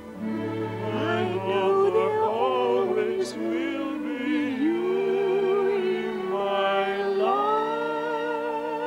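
Orchestral music playing a slow melody of long notes with vibrato. A new sustained note comes in about seven seconds in.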